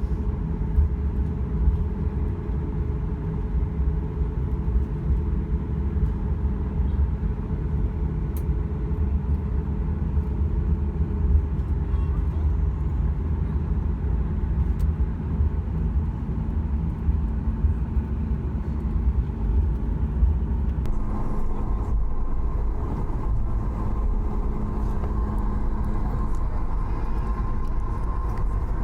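Steady low rumble of a Boeing 737 MAX 8's CFM LEAP-1B jet engines, heard inside the cabin. About two-thirds of the way through, the sound shifts and a steady higher whine joins the rumble.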